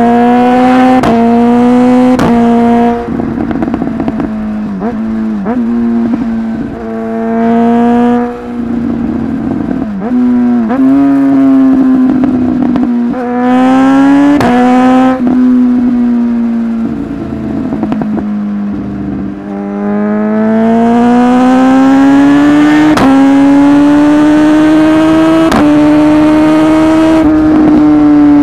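Suzuki GSX-S1000's inline-four engine accelerating hard through quickshifter upshifts. The engine note climbs, breaks with a short bang at each shift, and climbs again: several shifts come in quick succession at the start and again around the middle. It ends in a long steady pull with a few more bangs near the end.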